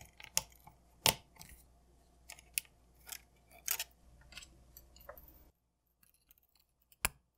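Small sharp clicks and taps of plastic and metal as a metal pick flips open the latches of ribbon-cable connectors and the small plastic front camera module is handled. The clicks come singly and irregularly, the loudest about a second in and near the end.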